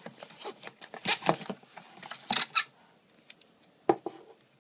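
An Apple Magic Trackpad's cardboard box being opened and the trackpad lifted out: a quick run of scrapes, rustles and clicks over the first three seconds, then a single knock near four seconds in.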